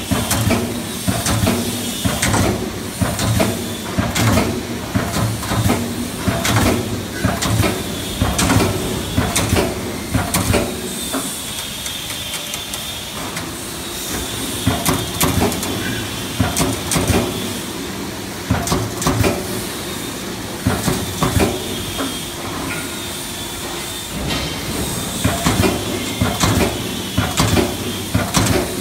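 Hydraulic CNC turret punch press punching sheet metal: runs of sharp punch strikes over a steady hydraulic hum and hiss, with a few pauses. A whine that dips and rises comes back every few seconds.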